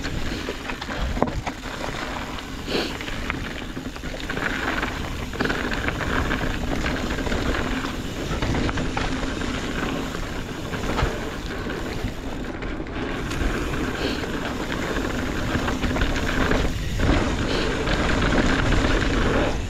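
Hardtail mountain bike riding a dirt singletrack: steady wind rush on the microphone and tyre roll on dirt, with frequent rattles and knocks from the bike over rollers and bumps.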